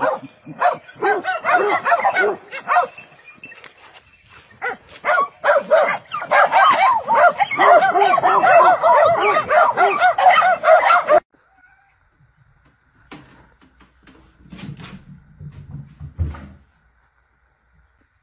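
A pack of hounds baying and yelping together, many high calls overlapping in a continuous chorus that cuts off suddenly about eleven seconds in. After that comes only a faint steady hum and a few low thumps.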